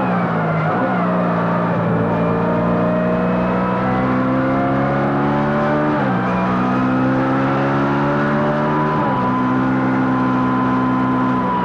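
Racing engine heard onboard, accelerating hard through the gears: its pitch climbs steadily, then drops sharply at each upshift, twice in the middle, before holding near the end.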